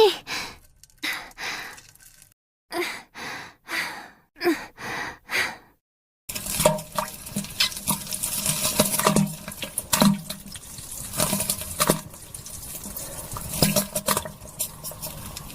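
A woman strains and moans in short bursts. About six seconds in, a continuous run of splashing and plopping into toilet water takes over: a staged sound effect of someone defecating on a toilet.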